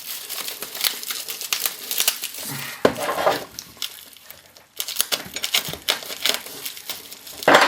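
Plastic packaging crinkling and rustling in irregular crackles as a package of small kit parts is opened and handled, with light knocks of the parts. The crackling eases off for a moment around the middle, and there is a louder crackle near the end.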